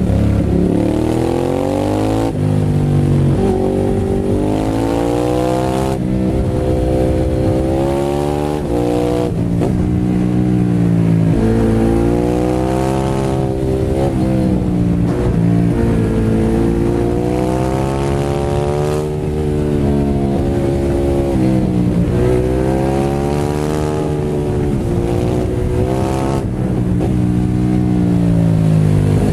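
Ducati Hypermotard 821 SP's L-twin engine running through a full Termignoni exhaust with dB eater, heard onboard while riding. The revs rise and fall again and again as the rider accelerates out of bends and rolls off, with a low wind rush under the exhaust note.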